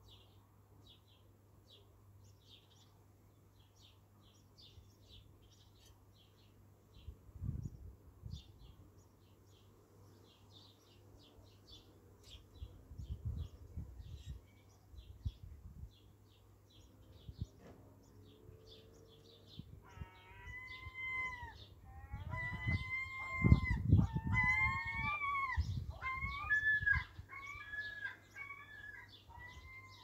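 Small birds chirping in quick repeated notes throughout. In the second half a larger bird gives a run of loud, drawn-out pitched calls, with a few low rumbles on the microphone.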